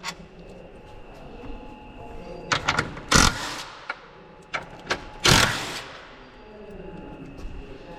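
Socket-wrench work on 13 mm bolts: scattered clicks and a few short, loud metallic rattles, the loudest about three seconds in and just past five seconds, over a faint steady hum.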